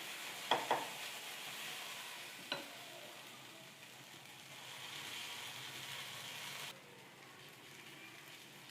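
Sweet corn adai batter sizzling as it is poured and spread on a hot, oiled dosa griddle, with three sharp taps against the pan in the first few seconds. The sizzle drops quieter about two seconds before the end.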